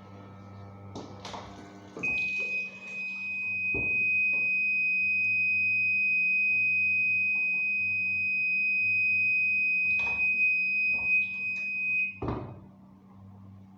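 Washing machine's electronic beeper sounding one long, steady high-pitched tone for about ten seconds, with a few clicks and knocks before and after it, over a low hum.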